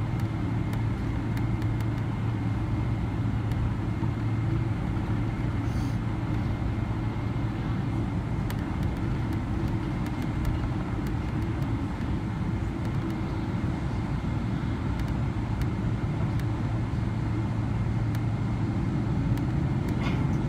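Steady cabin noise of a Boeing 777-300ER taxiing after landing, its GE90 engines at idle: an even rush with a low hum and a faint high whine.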